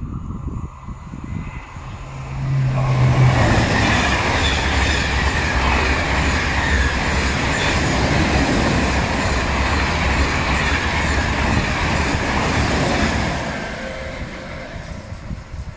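A double-deck TGV Duplex high-speed train running past close by. The noise builds about two seconds in, stays steady and loud for some ten seconds, then fades away near the end.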